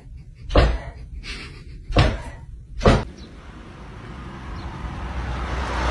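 Three dull thumps, the first about half a second in and the other two close together around two to three seconds in, followed by a hiss of background noise that grows steadily louder.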